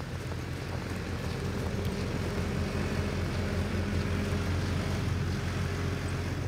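A vehicle engine's steady low hum, with a fainter higher tone over it through the middle, along with footsteps in snow.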